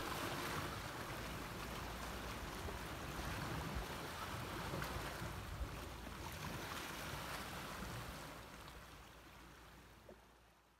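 Ambient wash of small waves on a calm sandy beach, with wind, as a steady noise that fades out over the last few seconds.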